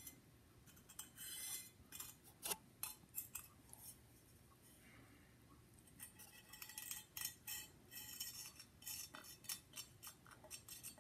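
Faint, irregular small clicks and scratches as the plastic tip of a squeeze applicator bottle is drawn along the carved lines of a bisque-fired porcelain mug, laying thinned black underglaze into them.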